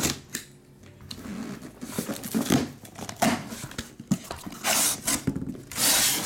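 Cardboard case being handled and opened: irregular rustling and scraping, with louder scrapes near the end.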